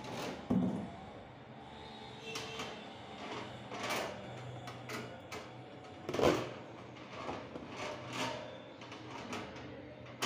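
Handling noise from a wall-mounted fan's plastic parts and wire guard: irregular clicks, knocks and rustles, the loudest knocks about half a second in and about six seconds in, over a low steady hum.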